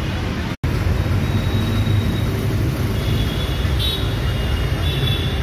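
Steady rumble of busy road traffic, with the sound cutting out completely for an instant about half a second in.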